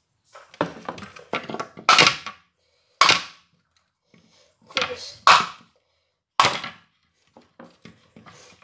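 Hammer blows on a Beldray stick vacuum's motor: about eight sharp knocks at uneven intervals, each with a short ring, the loudest about two, three, five and six seconds in.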